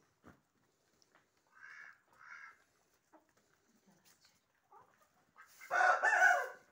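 Farmyard chickens and ducks calling: two short calls close together about two seconds in, then a much louder sound lasting about a second near the end.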